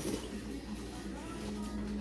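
Soft background music with long held notes.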